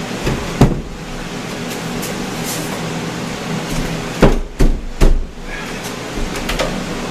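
Wooden knocks and bumps as a shelf unit is set onto a French cleat on the wall: one sharp knock near the start, then three sharp knocks about half a second apart past the middle, the last the loudest, with a few lighter clicks between. A steady hum runs underneath.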